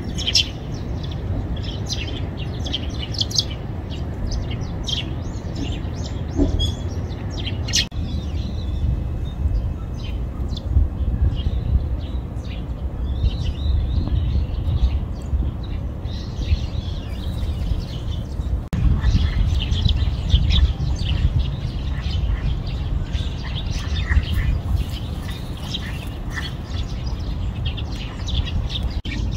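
Small birds chirping in quick, high, short calls, coming in bouts with brief pauses, over a steady low rumble.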